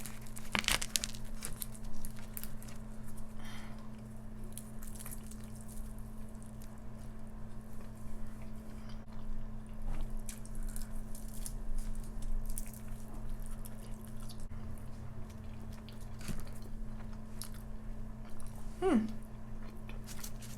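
A person eating close to the microphone, biting and chewing crunchy food with many short crunching clicks, over a steady low hum.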